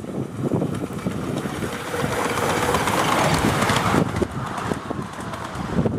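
Miniature steam locomotive passing close by with its train, its running noise swelling to loudest about three to four seconds in and easing as it goes past.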